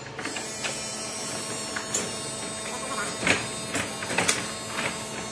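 Folding mobile stage being unfolded and set up: knocks and clatter from its aluminium-edged deck, folding legs and casters, with a few sharp clicks in the first two seconds and a cluster of louder knocks between about three and four and a half seconds. A steady faint hum runs underneath.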